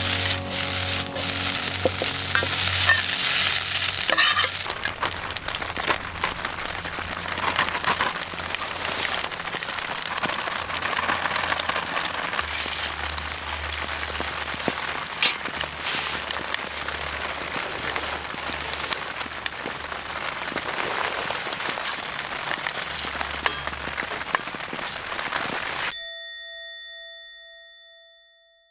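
Food sizzling and crackling in a wok over a fire, with occasional metal clinks from the ladle, under soft background music. It fades out near the end.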